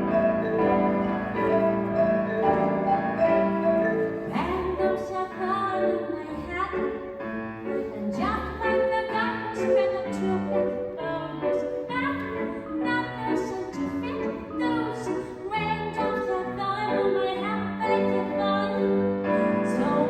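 Music: held notes for the first few seconds, then a part with many short struck notes comes in about four seconds in.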